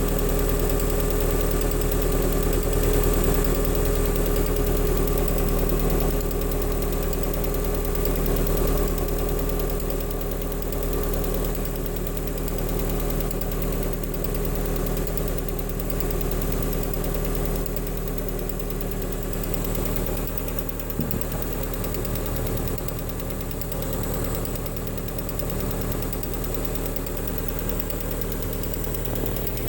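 Lada Kalina's 1.4-litre 16-valve four-cylinder engine idling steadily with a strange knock, which began at a morning start and whose cause the owner cannot place.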